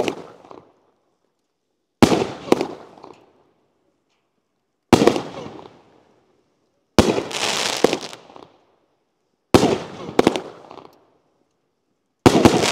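Nine-shot consumer fireworks cake of brocade shells with color and strobe pistils, firing shot after shot. Five sharp reports come two to three seconds apart, and each trails off over about a second.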